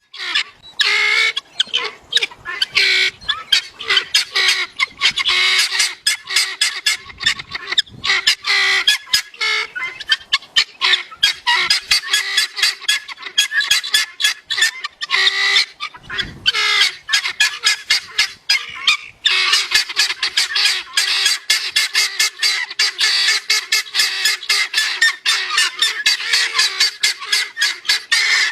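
Guineafowl calling: harsh, rapidly repeated calls, several a second, kept up almost without a break.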